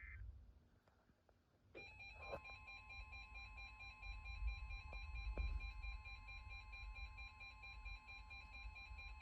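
The tail of an Emergency Alert System data header burst, a short pause, then about two seconds in the weather radio alert tone starts: a steady high tone with a second, pulsing beep layered over it, marking the start of a new warning.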